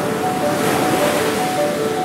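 Ocean surf washing onto a beach, a steady hiss of breaking waves, with soft background music playing a slow run of single notes over it.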